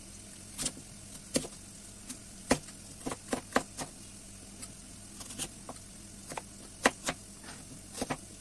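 A crinkle cutter's wavy steel blade chopping through a peeled raw potato and knocking on a wooden cutting board: a string of sharp chops at an uneven pace, roughly one every half second.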